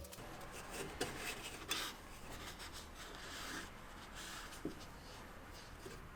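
Faint rubbing and scraping from hands working on the appliance, with a few light knocks about a second in, near two seconds and past the middle.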